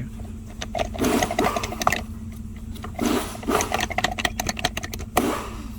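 A removed car HVAC blower motor and fan cage being shaken by hand, rattling in three bursts of quick clicks as something loose moves inside it. The loose part is the cause of the loud noise the fan made when the AC fan was switched on.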